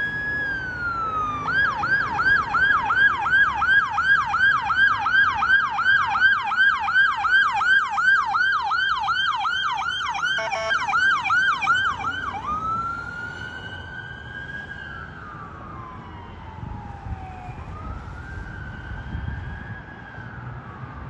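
Electronic siren of a fire department officer's SUV responding to a call. It goes from a wail into a fast yelp of about three sweeps a second for some ten seconds, briefly broken by a harsher burst, then back to slow rising and falling wails that grow fainter as it drives away.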